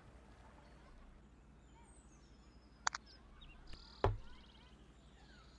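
Quiet background with faint, distant bird chirps, a sharp click just before three seconds in, and a dull thump about four seconds in.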